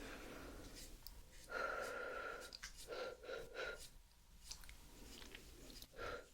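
Soft brush strokes swept across the microphone in a few slow swishes: one longer stroke, then three short ones in quick succession, and another near the end.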